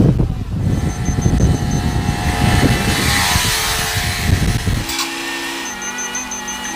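Heavy multi-axle mobile crane driving by: a loud low engine and tyre rumble with wind buffeting the microphone. It cuts off abruptly about five seconds in, and music with held notes takes over.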